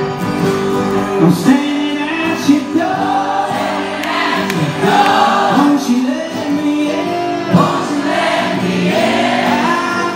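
Live acoustic band music: a man singing lead over strummed acoustic guitar and mandolin, the vocal coming in about a second and a half in.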